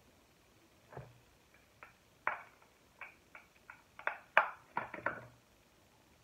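Makeup being handled at a table: a series of light clicks and taps as a compact case and brushes are picked up, opened and set down, about a dozen over four seconds and busiest near the end.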